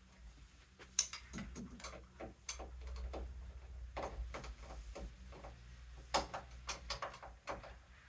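Screwdriver working the screws of a metal door latch plate: a run of irregular light metallic clicks and taps as the tip turns and catches in the screw heads.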